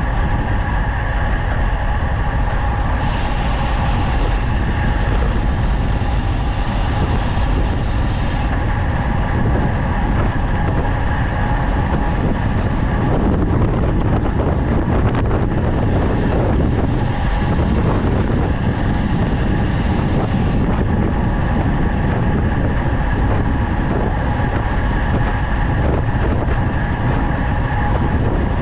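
Loud, steady wind rush on the microphone of a road bike descending at speed, with a steady whine underneath. Twice, for about five seconds each, a brighter hiss joins in.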